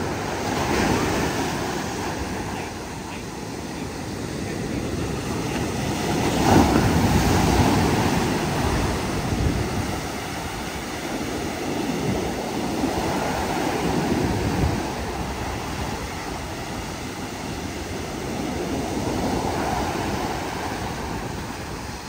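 High surf breaking on a bathing beach: a continuous rush of waves that swells as each wave breaks and washes in, about every six seconds, then eases.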